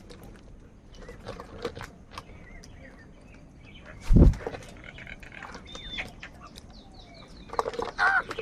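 Crows calling with short caws, several in quick succession near the end, and a loud low thump about four seconds in.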